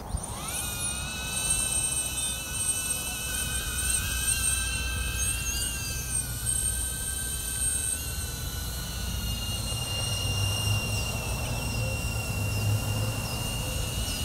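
DJI Avata FPV drone's ducted propellers spinning up to lift off and then flying: a whine of several steady high tones that rises in the first half second, then holds, shifting slightly in pitch.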